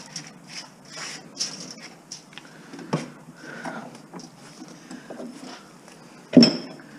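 Hand-cutting of copper windings on a metal electric motor stator: a few scraping strokes at first, then scattered scrapes and clicks of metal being handled, with a small knock about three seconds in and a loud, sharp metallic knock near the end that rings briefly.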